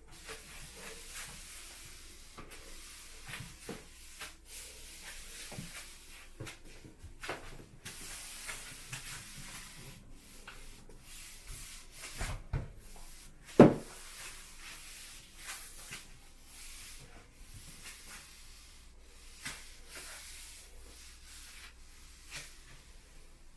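Quickle Wiper floor mop swishing and rubbing over the floor, with scattered light taps and knocks and one loud knock about fourteen seconds in.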